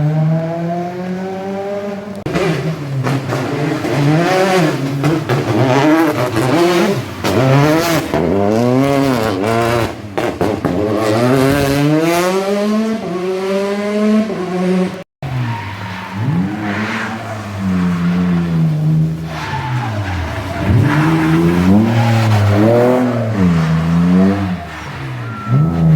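Car engine revving hard, its pitch rising and falling again and again as the car drifts, with tyre squeal. The sound breaks off for an instant about halfway through.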